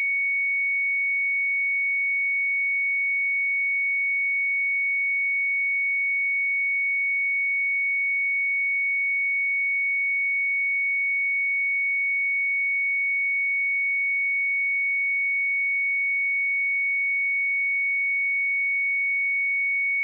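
A single steady 2227 Hz sine-wave test tone, a pure high-pitched beep held at one pitch and level.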